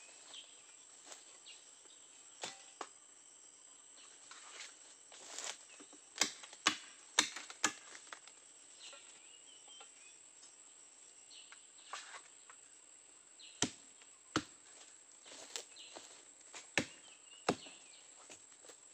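A hand tool striking into the earth of a mound, dug to reach buried monitor lizard eggs. The sharp, irregular chops come in two bunches, one about six seconds in and one from about thirteen seconds in. Insects drone steadily throughout.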